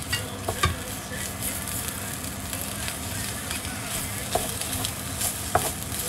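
Chanterelles and egg frying in a pan, sizzling steadily while being stirred, with a few sharp clicks of a utensil against the pan.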